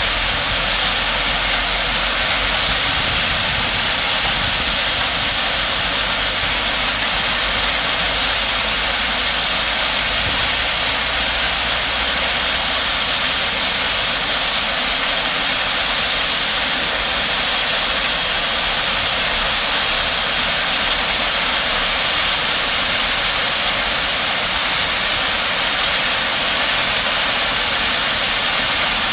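A dump truck's load of rock pours steadily off its raised tipper bed and down a steel chute into a barge, making a continuous rushing hiss. A diesel engine runs low underneath, most noticeable in the first few seconds.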